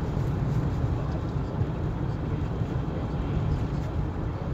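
Car driving on a snowy road, heard from inside the cabin: a steady low rumble of tyre and engine noise.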